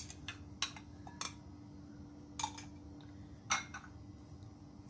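A white serving spoon knocking and scraping against a glass bowl as diced cucumber is tipped into a salad bowl. There are several separate sharp clicks, the loudest about three and a half seconds in.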